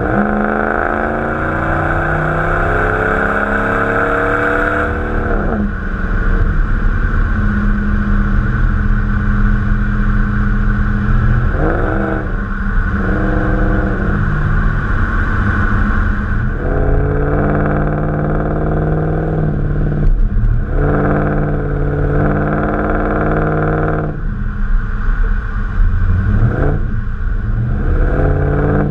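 Dodge Ram pickup's 5.7-litre Hemi V8 through its stock exhaust, revving: one long climb in pitch over the first five seconds, then a string of shorter rev blips, dropping back to a steady low note between them.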